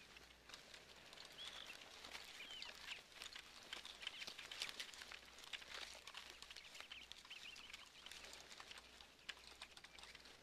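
Faint rustling and crackling of many feet moving through dry fallen leaves, with small bird chirps here and there.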